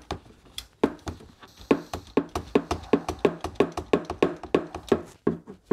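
Socket ratchet clicking in an even run of about three clicks a second as it turns an oil-filter socket to loosen the oil filter.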